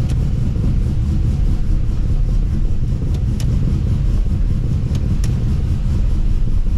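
Freshly installed GM LS1 5.7-litre V8 idling with a steady low rumble, a few sharp clicks over it.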